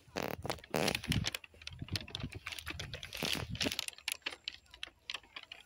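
An irregular clatter of clicks and rustling, with louder bursts in the first second and again about three seconds in.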